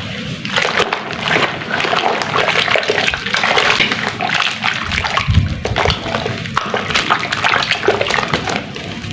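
Dried sand and cement chunks being dipped in water, crackling and fizzing as they crumble, with sloshing water.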